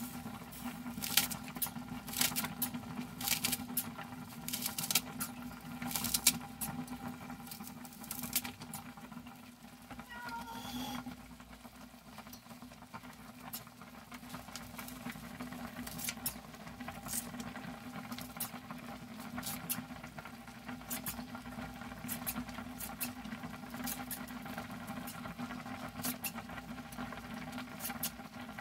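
Kitchen scissors snipping a green onion into a pot, a crisp snip about once a second, with a pause of a few seconds near the middle. A steady low hum runs underneath.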